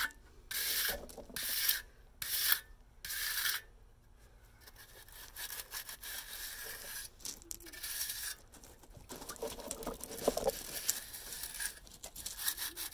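Steel trowel scraping over a freshly formed, still-wet concrete curb: about four loud scraping strokes in the first few seconds, then softer, irregular rubbing as the surface is smoothed.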